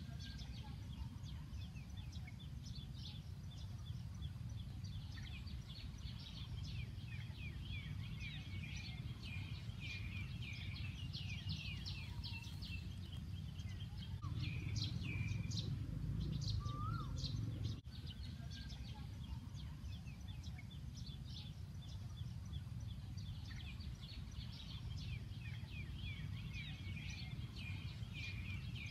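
Many small birds chirping and twittering in quick, overlapping short calls, over a steady low rumble that swells for a few seconds about halfway through.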